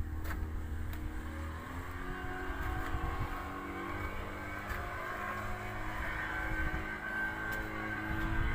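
An engine running steadily, a drone of several held tones over a low rumble, with a few faint clicks.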